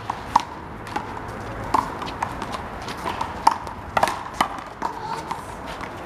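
Rubber handball being slapped by bare hands and bouncing off the concrete wall and court during a rally: a run of sharp, irregularly spaced smacks, about two a second, each with a short ringing ping.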